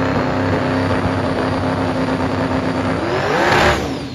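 A twin-turbo drag car's engine held at steady high revs with a steady turbo whine. About three seconds in, it revs sharply up and then falls away.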